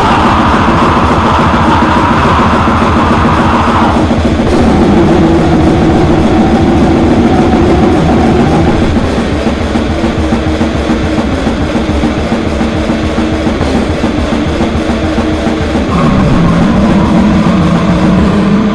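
Slam/grind metal: heavily distorted guitars over rapid, dense drumming. The riff changes about four seconds in and again near the end.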